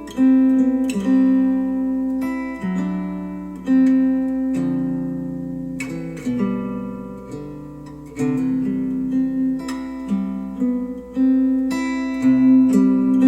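Acoustic guitar music, plucked and strummed chords whose notes ring and die away, played back through Polk Audio R200 bookshelf speakers.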